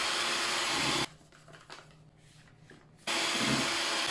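Electric hand mixer running, its beaters whisking a thick egg-yolk and tapioca-starch batter in a steel bowl with a steady motor whir. The sound stops about a second in and the mixer runs again about two seconds later.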